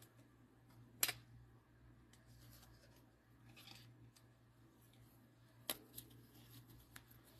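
Quiet handling of trading-card packaging, with two sharp clicks, one about a second in and one nearly six seconds in, and a few fainter ticks over a faint steady hum.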